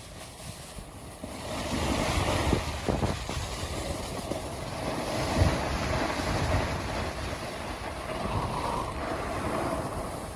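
Wind buffeting the microphone and the hiss of sliding over snow down a ski slope, growing louder about a second in, with a few dull thumps.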